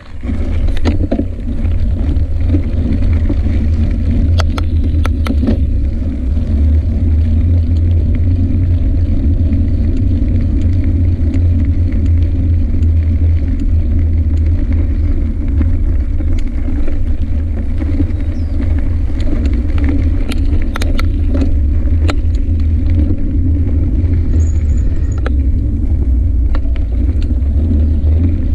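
A bicycle rolling along a dirt road, heard through a handlebar-mounted camera: a steady low rumble of tyre and road vibration. Scattered clicks and rattles from bumps come in clusters about four to five seconds in and again around twenty to twenty-two seconds in.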